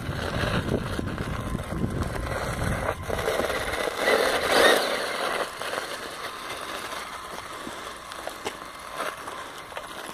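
Electric RC buggy running on dirt while towing a second buggy on a strap: small motor whir with tyres crunching and scraping over grit, loudest about four to five seconds in, then quieter.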